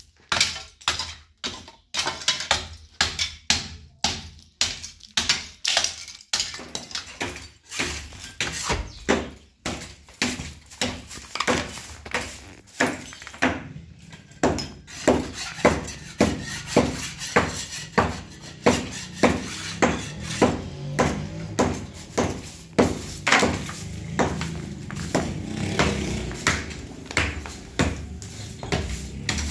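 A hammer knocking old plaster off a wall, in sharp strikes about one or two a second. From about halfway, a straw broom sweeps loose plaster rubble in steady strokes, about two a second.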